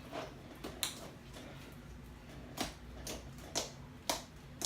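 Freshly activated glue slime being poked and kneaded by hand, giving a run of sharp, wet clicking pops about every half second to second.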